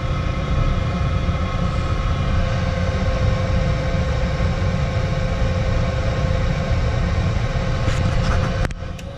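Lennox EL296 gas furnace running on its low stage: a steady hum and rumble from the draft inducer motor. Near the end there is a click and a brief drop in level as the furnace shifts up to second stage.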